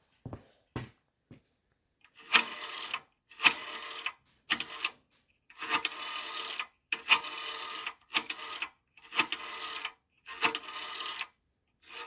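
Repeated metallic rattling from the coin mechanism of a 1963 payphone, about one burst a second, each starting with a sharp click. The mechanism is stiff and slow with age.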